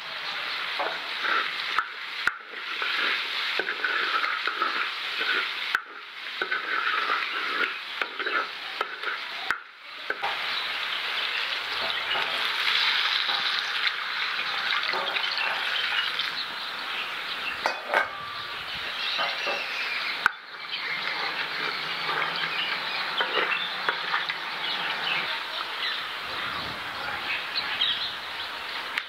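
Potato cubes sizzling in hot oil in a large pot over a wood fire, stirred with a wooden spoon scraping the pot. Partway through, water poured over the hot potatoes hisses, and the frying settles into a softer bubbling. There are a few abrupt breaks in the sound.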